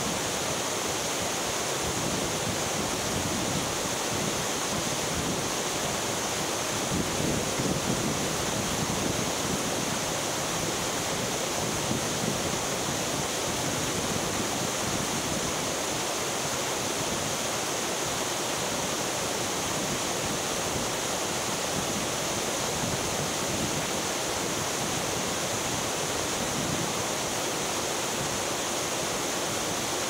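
Rushing water, a steady, unbroken rush from a waterfall or fast mountain stream.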